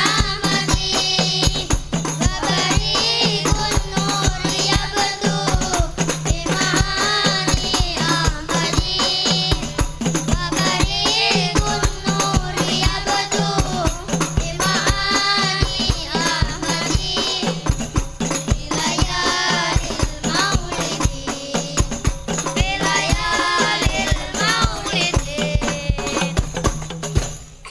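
Sholawat devotional song: a sung melody over a steady hand-percussion beat with rattling jingles, stopping suddenly near the end.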